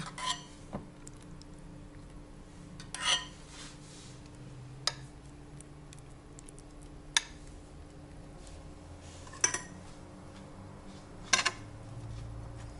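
A metal spoon clinking against a glass baking dish, about six sharp clinks a second or two apart, as mayonnaise is spread over layered fried eggplant slices. A faint steady hum runs underneath.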